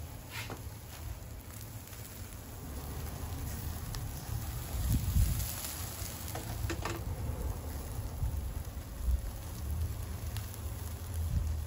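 Chicken sizzling and crackling over glowing charcoal, with scattered small pops. About halfway through, the hinged wire grill basket is flipped over, adding a brief louder stir of sound.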